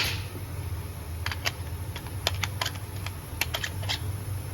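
Light clicks and taps from handling the wrenches and the router after tightening the collet nut, scattered irregularly over a low steady hum.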